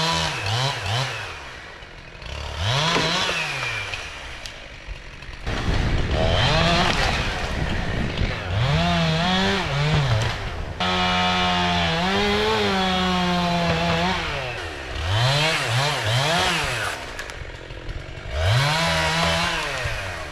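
Jonsered two-stroke chainsaw revved up and down over and over, with two longer stretches of steadier running in the middle as it cuts into a tree trunk.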